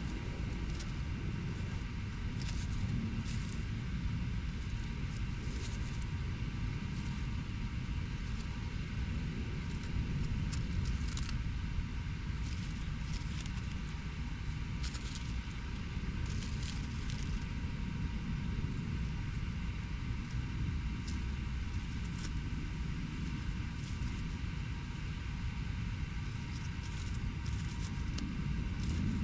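Urban ambience: a steady low rumble of distant road traffic, with a faint steady hum of several tones and scattered short ticks over it.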